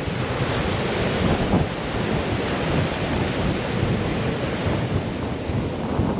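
Ocean surf washing onto the beach, a steady wash of noise, with wind buffeting the microphone.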